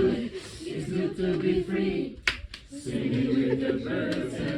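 A group of voices singing a song together, unaccompanied, with a short break and a sharp click a little past halfway.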